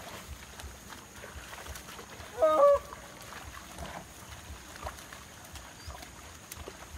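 A ploughman's short, high call to his pair of yoked bulls, about two and a half seconds in, one brief cry that slides slightly down in pitch. Otherwise only faint low rumbling and small ticks from the field work.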